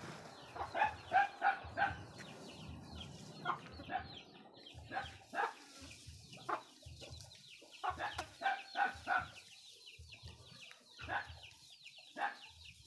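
A chicken clucking again and again, in short runs of two to four clucks every second or two.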